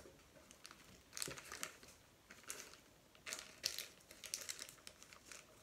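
Thin plastic wrapper around a block of modelling clay crinkling as hands handle it: short crackly rustles about a second in and again near two and a half seconds, then a longer run of crinkling from about three seconds on.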